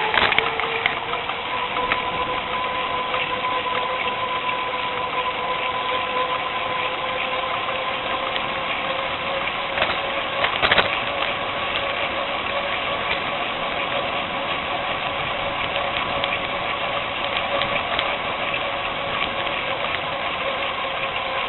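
Riding a bicycle along a paved path: a steady whine that rises slightly in the first two seconds and then holds, over a constant hiss, with short rattles and knocks from bumps, the loudest about ten seconds in.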